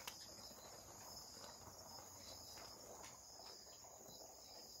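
Near silence with a faint, steady high-pitched chirring of crickets.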